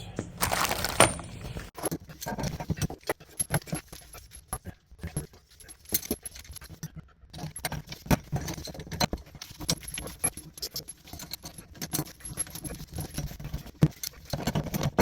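Irregular clinks, clicks and knocks of small metal plumbing parts being handled as a recirculating pump's bypass valve is fitted to the water lines.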